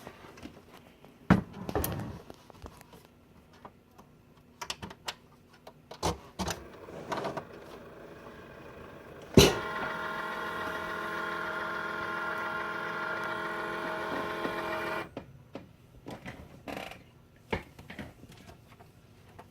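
Cricut Explore Air cutting machine loading a mat: scattered clicks and knocks, then a sharp clunk about halfway through followed by a steady, multi-toned motor whine for about five seconds that stops suddenly, then more clicks. This is the noise the owner hears from the new machine when loading the mat.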